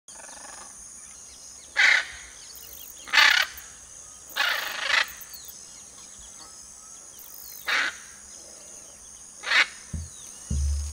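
Tropical birdsong ambience: small birds chirping throughout, broken by five loud, harsh macaw squawks. Deep drum beats start near the end.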